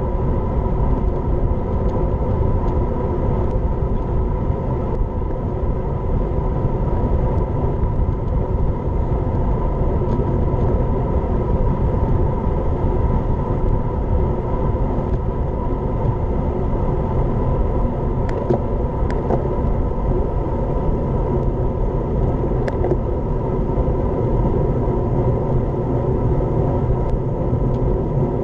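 Steady low wind rumble buffeting a bicycle-mounted action camera's microphone as the bike rolls along at speed. A few faint ticks come about two-thirds of the way through.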